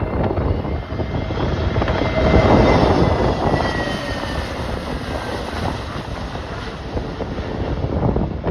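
Jet airliner passing close on its landing approach: engine rumble swelling, loudest about two to three seconds in, with a high engine whine that falls in pitch as it goes by. Gusty wind buffets the microphone throughout.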